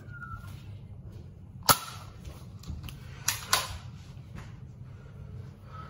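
Nerf blaster shots: three sharp pops, the loudest about two seconds in, then two in quick succession a little over three seconds in.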